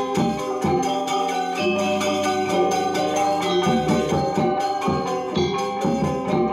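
Balinese gong gamelan ensemble playing: bronze metallophones ring in dense, fast figures over repeated drum strokes. The drum strokes drop out for a couple of seconds near the middle.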